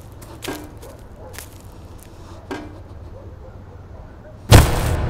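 A hand tool digging into earth, a sharp stroke with a dull thud roughly once a second. Near the end a sudden loud low boom of dramatic film score cuts in and keeps going.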